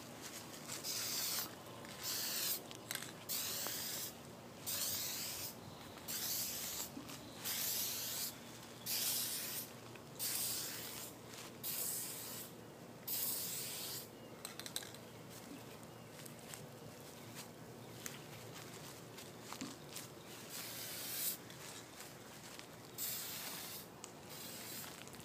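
Aerosol can of matte black fabric spray paint spraying onto a cloth convertible top in a long string of short hissing bursts, each under a second.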